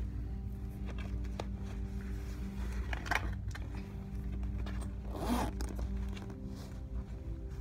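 Background music with steady, sustained low notes, and two short rasping scrapes, one about three seconds in and a louder one about five seconds in.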